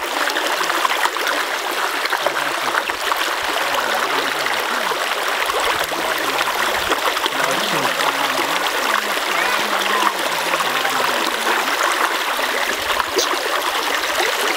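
Shallow spring-fed brook running steadily and splashing over pebbles and around a boulder.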